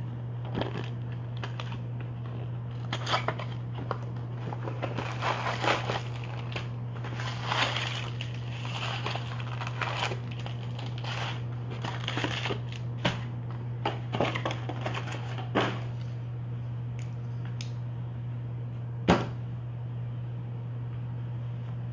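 A cardboard hobby box of Bowman Draft baseball cards being handled, its foil-wrapped packs pulled out and stacked: scattered rustles and light knocks, with one sharp click near the end. A steady low hum runs underneath.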